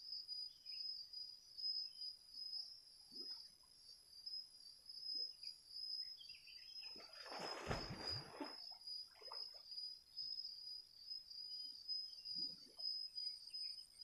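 Insects chirring steadily at a high pitch, with one loud splash of water about halfway through as a swimmer surfaces and moves through the river, and a few faint small sloshes.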